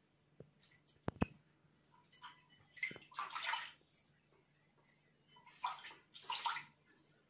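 A cat pawing at water in a plastic basin: faint splashing and sloshing in two bouts, about three and six seconds in, after a few sharp clicks about a second in.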